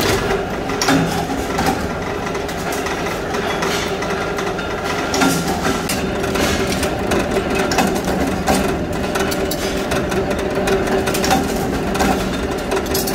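Mechanical power press running with a steady hum while punching sheet-steel pieces, with sharp metallic knocks of the strokes at irregular intervals.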